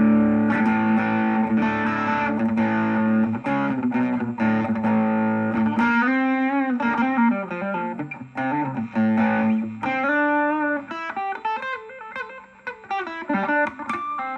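Electric guitar played through a Vox VR30 Reverb combo amp on its overdrive channel: held distorted chords for the first six seconds or so, then a single-note lead line with notes that bend in pitch.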